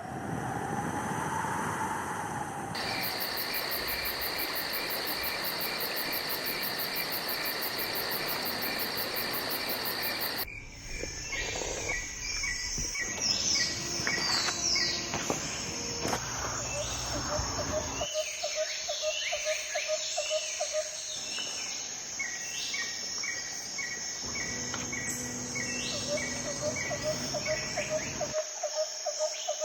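Insects trilling steadily over a noisy background. About ten seconds in it cuts abruptly to birds singing: repeated short chirps and quick falling whistles, with a fast pulsing trill lower down.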